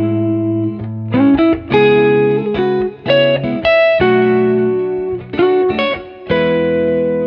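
Background instrumental music: a melody of held, pitched notes that change every half second or so, with brief pauses between phrases.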